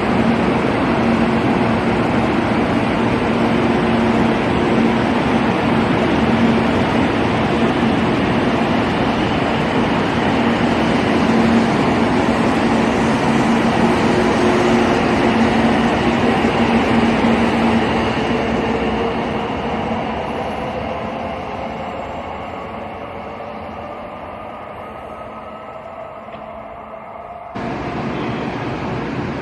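Electric train running close and loud with a steady low hum, then fading as it moves away while a motor whine slowly rises in pitch. Near the end the sound cuts abruptly to a steady wind-like noise.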